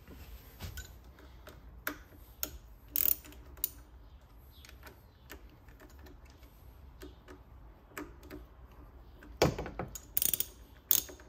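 Hand ratchet wrench clicking in short runs as it loosens the screws of a marine engine's raw-water pump cover, with scattered metal clicks. A few louder knocks come near the end.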